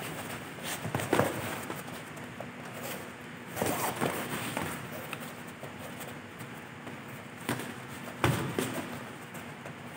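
Boxing sparring: irregular sharp thuds of gloved punches landing, in a few clusters, with the loudest hits about a second in and just past eight seconds.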